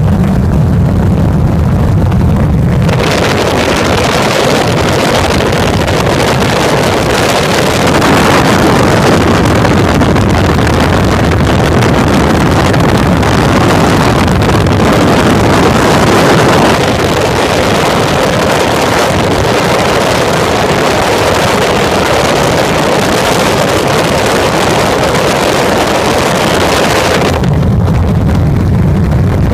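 Helicopter in flight: a steady low drone of the rotor and engine. From about three seconds in until about two seconds before the end, a loud, even rushing noise covers the drone.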